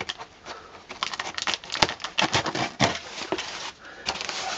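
A small razor blade slitting packing tape on a cardboard box: an irregular series of short scratches and ticks as the blade drags through the tape and catches the cardboard, with one sharper click a little under two seconds in.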